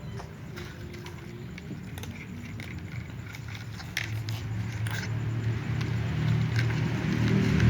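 Cats crunching dry food: scattered small crunches and clicks. From about four seconds in, a low rumble grows steadily louder under them.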